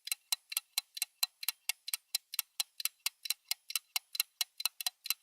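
Clock ticking fast and evenly, about four to five crisp ticks a second.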